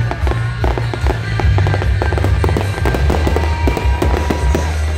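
Fireworks bursting and crackling in a rapid string of pops and bangs, densest in the first few seconds, over loud music with a heavy, steady bass.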